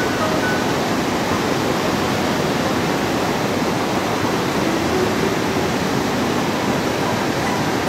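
Steady rushing of white water, an even roar with no breaks.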